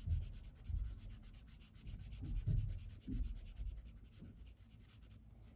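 Felt-tip marker rubbing back and forth on paper while colouring in a shape, in quick irregular strokes that die away near the end.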